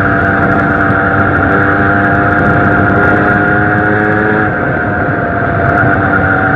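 Zanella 70cc two-stroke moped engine running under way with a steady note. The note and loudness dip slightly about halfway through, then pick up again a second or so later.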